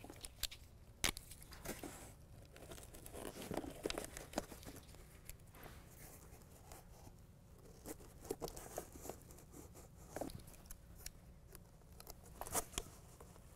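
Faint crinkling and tearing as release liners are peeled off small adhesive-backed hook-and-loop (Velcro) pieces, with scattered light clicks as the pieces are handled and pressed into place.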